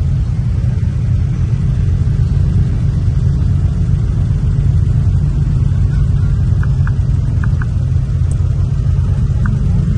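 Off-road dune vehicle's engine running with a steady low rumble.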